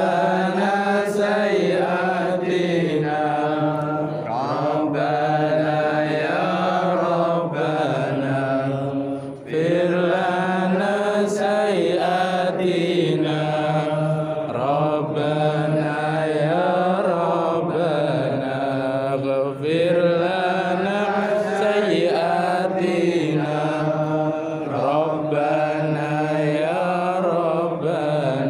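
Continuous melodic Islamic chanting, sung in repeated phrases that rise and fall every few seconds.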